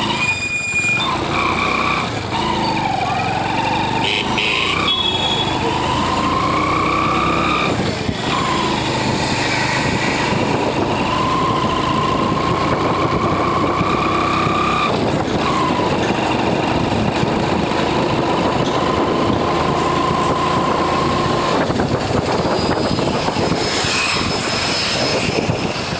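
Motorcycle riding along, its engine whine climbing in pitch and dropping back suddenly twice, then holding steady, over a steady rush of road and wind noise.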